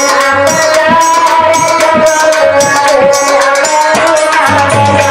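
North Indian folk music: a harmonium playing held notes and melody over a steady hand-drum beat.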